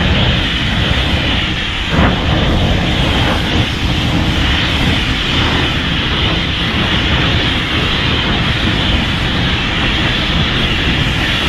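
Monster sound effect from the anime Gamera Rebirth: a loud, steady rushing rumble, with one sharp hit about two seconds in.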